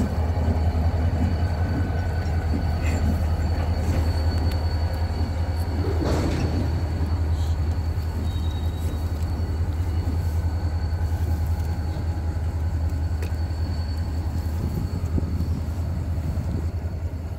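Norfolk Southern diesel freight locomotive and its train of freight cars rolling away, a steady heavy low rumble that eases slightly toward the end. A faint thin high tone runs along with it.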